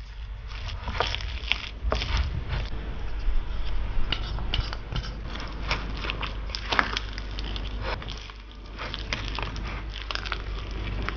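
Silicone spatula mashing and stirring mashed potato with cream cheese and a creamy liquid in a ceramic bowl: irregular wet squishing, with scrapes and taps of the spatula against the bowl.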